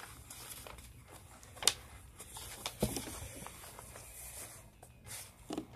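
Pages of a hardcover picture book being turned and the book handled: soft paper rustles and small taps, with one sharp click about a second and a half in.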